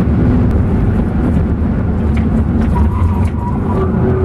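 Steady road and engine noise heard from inside a moving car's cabin: a dense low rumble, with a faint steady tone coming in near the end.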